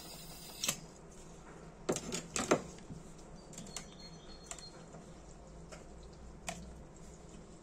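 A handful of small hard clicks and knocks, the loudest three in quick succession about two seconds in, then a few fainter taps: a brass Dunhill Rollagas lighter and a butane refill can being handled and set down on a workbench after refilling.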